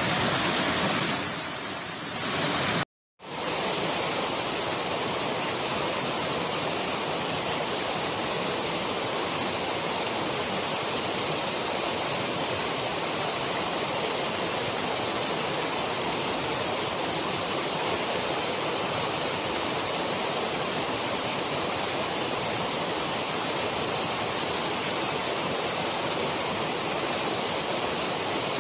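Waterfall making a steady, loud rushing noise. It dips briefly and cuts out for a moment about three seconds in, then carries on unchanged.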